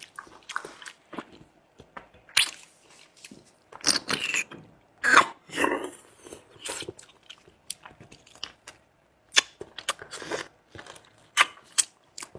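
A person eating close to the microphone: chewing and crunching, in irregular short bursts with pauses between.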